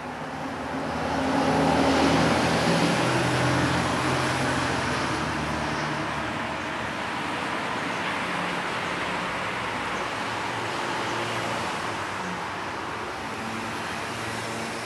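Motor vehicle engine running with traffic noise: a low engine hum that swells about two seconds in, then holds steady.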